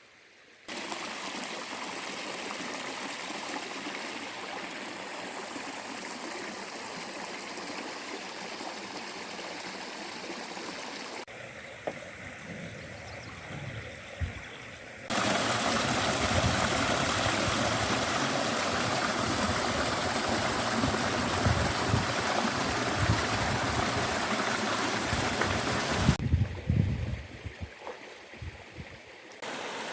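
Seasonal stream flowing and splashing, a steady rush of water that jumps in loudness several times, loudest from about halfway, with some low thumps in the louder part.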